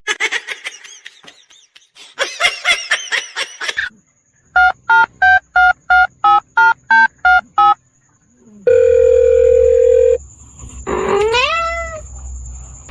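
Telephone keypad tones: about eleven evenly spaced touch-tone beeps as a number is dialled, followed by a steady tone lasting about a second and a half. Before the dialling come a few seconds of short high chirps, and near the end a quick rising squeal.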